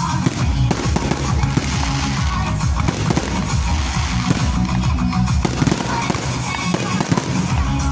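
Aerial firework shells bursting in a quick run of bangs, mixed with electronic dance music with a heavy, steady bass.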